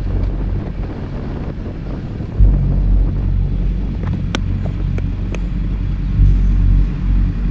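BMW GS motorcycle under way: a steady low rumble of engine and wind that swells twice, about two and a half seconds in and again about six seconds in, with a few short sharp ticks in between.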